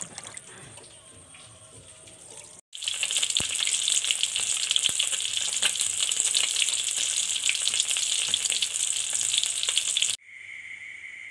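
Hands swishing vegetables in a plastic basin of water, with light splashing. After a sudden cut, small fish frying in oil in a pan: a loud, dense sizzle full of fine crackles. Near the end it cuts to a steady high chirring of insects.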